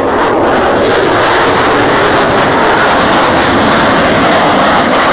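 F-22 Raptor's twin Pratt & Whitney F119 turbofan engines heard as a loud, steady jet rush during a low pass, holding at full strength throughout.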